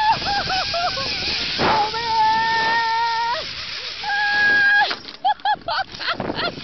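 A woman screaming and yelping as she rides down a zip line: a few short yelps, then two long held screams, then a rapid run of short yelps near the end, over a rush of wind noise.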